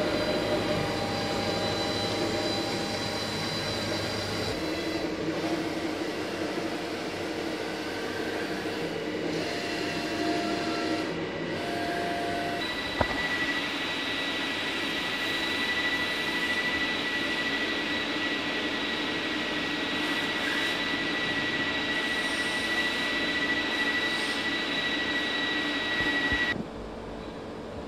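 Micron WF51D milling machine running under power, its motors giving a steady mechanical hum. About halfway through, a click and then a high steady whine come in, which stops sharply a little before the end.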